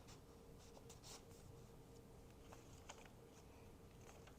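Near silence with faint rustles and a few light ticks of junk-journal paper pages being handled and turned, over a faint steady hum.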